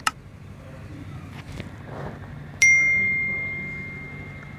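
A short click, then about two and a half seconds in a single bright bell ding that rings out slowly. This is the notification-bell chime of a subscribe-button animation.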